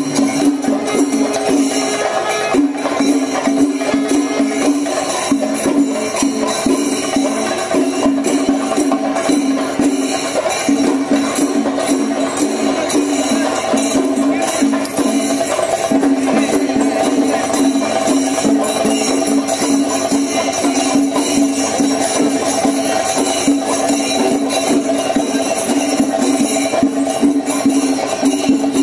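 Kerala temple festival music: fast, dense clashing of cymbals and drumming under a wind instrument holding steady, repeated notes in phrases of a second or two.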